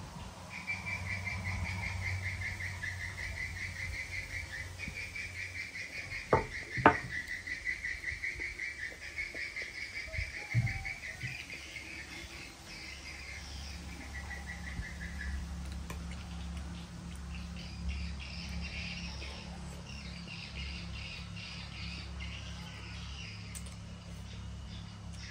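Steady, fast-pulsing high chirping from an unseen small animal, fading out about fifteen seconds in, with fainter chirps after. Two sharp clicks close together about six seconds in are the loudest sounds, and a lighter click comes near eleven seconds. A low steady hum runs underneath.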